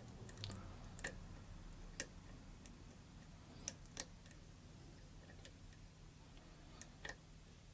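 Faint, irregular clicks of a lock pick working the pins inside a Schlag pin-tumbler lock, a handful of light ticks spread a second or more apart.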